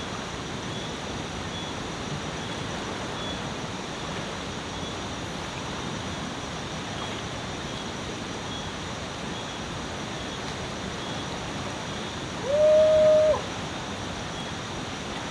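Steady rushing of a shallow river flowing over rocks. About twelve seconds in comes one short, loud, high held cry from a person wading into the water.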